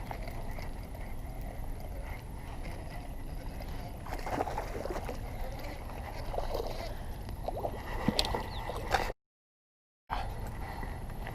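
Steady low wind rumble on the microphone, with irregular water splashing and sloshing from about four seconds in and a few sharp clicks shortly before the sound cuts out for about a second.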